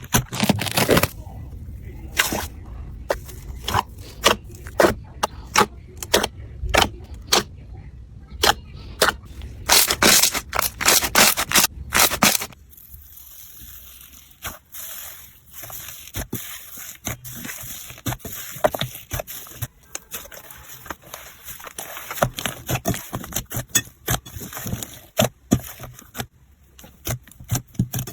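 Slime being squeezed and poked, giving many sharp pops and crackles. About halfway through, the sound turns quieter, with sparser and softer clicks.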